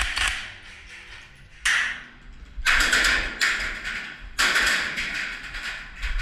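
Airsoft guns firing in several bursts of rapid shots, the longest running well over a second.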